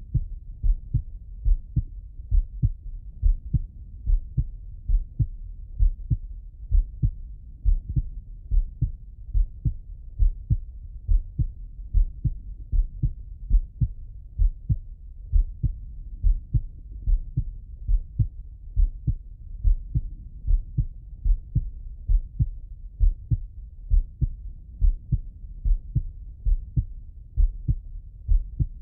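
A man's heartbeat heard through the bell of a stethoscope: low, dull lub-dub beats in pairs, keeping a steady, even rhythm.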